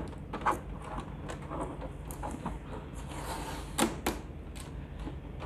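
Plastic parts of a Daikin MC55UVM6 air purifier being handled as its panel and filter are taken out: a string of light clicks and knocks, with a short scraping hiss followed by the loudest knock a little before four seconds in.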